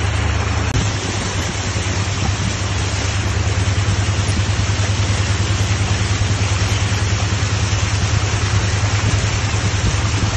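A vehicle's engine running steadily as it ploughs through deep floodwater, with water rushing and splashing along its side.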